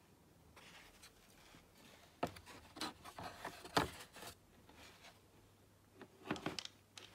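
Handling noise from tools in a moulded plastic tool case: light clicks, taps and rubbing of hard plastic and metal. The sounds come in a dense cluster about two seconds in, lasting about two seconds, and a shorter one near the end.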